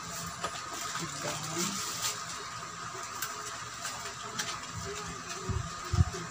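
Plastic wrap crinkling and a small cardboard package rustling as hands pull and pick at them, with scattered small ticks. A few low thumps come near the end.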